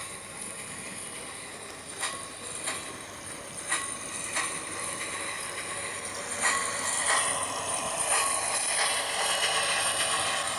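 Hornby OO gauge model locomotive with an HM7000 sound decoder running along the track and slowing for an automatic station stop, with irregular clicks over the rail joints. About six and a half seconds in a louder, high-pitched sound sets in.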